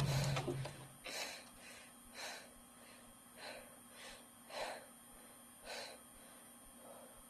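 A woman's frightened breathing: about seven short gasping breaths, roughly a second apart. The tail of a louder low rumble dies away in the first second.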